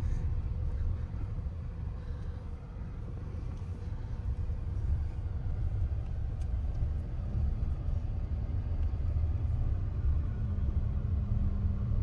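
Steady low rumble of a car driving slowly on an unpaved dirt track, heard from inside the cabin.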